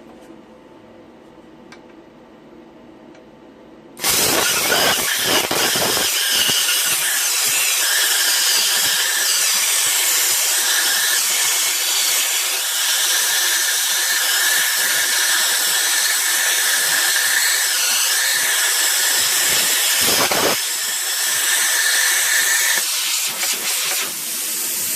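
Plasma cutter cutting a groove in a half-inch pipe nipple. After about four seconds of quiet, the arc and its air start suddenly into a loud, steady hiss that keeps going.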